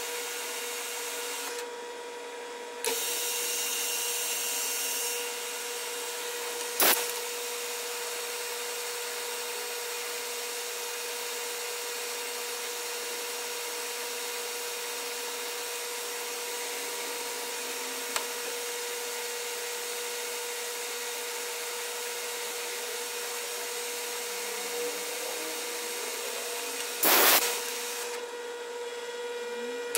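Lathe running with its spindle turning a white plastic workpiece: a steady motor hum with a constant tone and hiss. Two short, loud bursts of noise come about 7 s and 27 s in.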